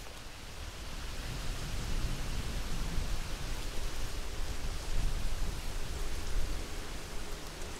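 Wind blowing in the open: a steady rushing noise with uneven low rumbling as gusts buffet the microphone, swelling somewhat in the middle.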